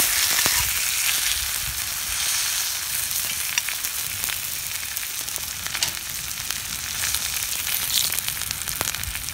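Sirloin steak sizzling in a black iron frying pan, the sizzle slowly easing off. A few light clicks come from a knife and fork against the pan as the steak is cut.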